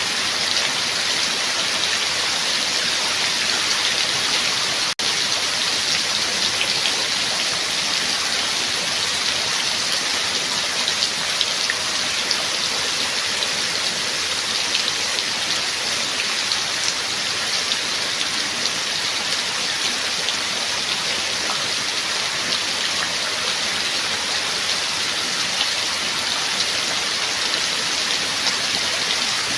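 Steady rain falling on a surface, a dense even hiss with scattered individual drop ticks. A split-second gap cuts the sound about five seconds in.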